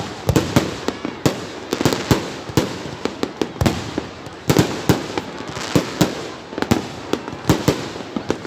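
Aerial fireworks shells bursting in quick, irregular succession: two or three sharp bangs a second, varying in loudness.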